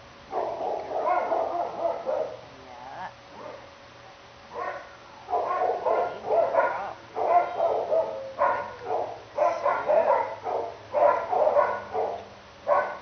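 Dogs barking over and over in short bursts, with a lull of a couple of seconds, then barking densely again from about five seconds in.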